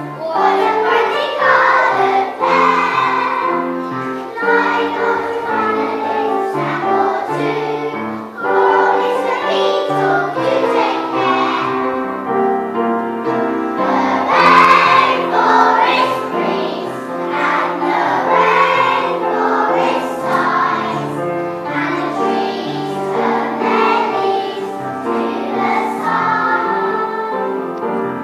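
Young children singing together as a choir, with instrumental accompaniment underneath.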